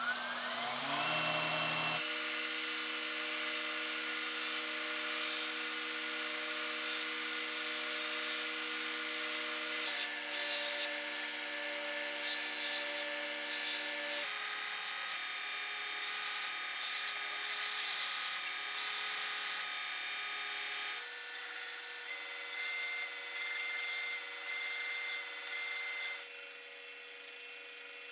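Belt grinder driven by a variable-speed AC motor controller spinning up with a rising whine, then running with a steady whine. Over it is the hiss of a steel knife blade being ground on the belt after heat treatment. The pitch and level change abruptly several times.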